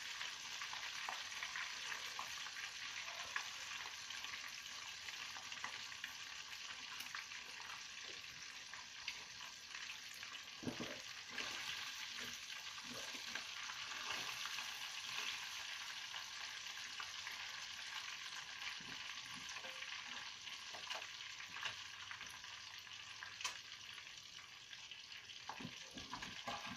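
Tilapia frying in hot oil: a steady crackling sizzle, the fish cooked through and the burner just switched off. A few light knocks come around the middle and again near the end.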